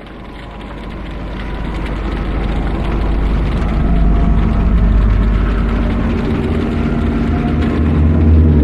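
Designed "hell" ambience sound effect: a dark, dense low rumble with layered drone tones that fades in over the first few seconds and then holds steady and loud.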